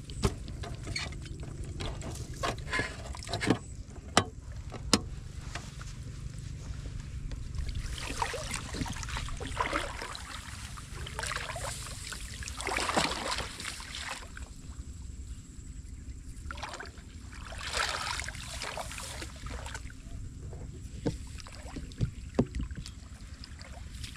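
Shallow muddy water splashing and sloshing in bursts as a person wades through a flooded rice paddy and works a woven bamboo plunge basket in it. There are a few sharp clicks in the first few seconds.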